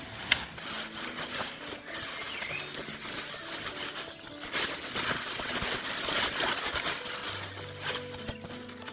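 Dry, old pea vines rustling and crackling as they are pulled up by hand, loudest about halfway through.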